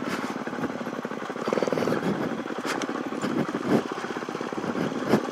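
Suzuki DR-Z400E single-cylinder four-stroke dirt bike engine running at low revs on a rough downhill trail, with a few knocks from the bike going over bumps.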